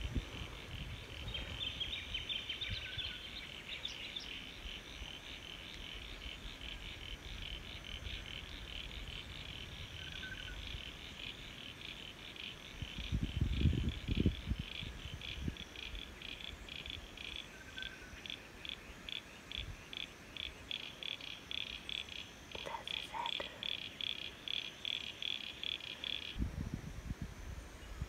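A frog calling in a fast, high-pitched pulsed trill, the pulses growing more distinct as it goes, then cutting off suddenly a couple of seconds before the end. Wind rumbles on the microphone about halfway through and again near the end.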